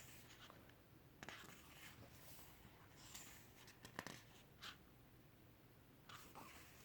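Near silence with a few faint, short paper rustles and soft ticks: pages of a photo book being turned by hand.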